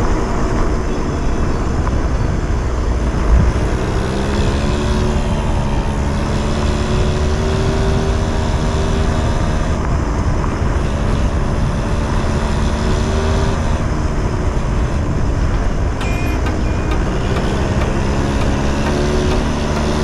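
Yamaha Jog engine running while the bike rides along, its pitch rising and falling with the throttle, over a steady low rumble of wind and road.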